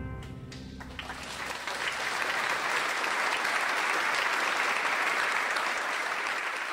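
The final held chord of the music dies away, and about a second in an audience breaks into applause that builds and carries on steadily.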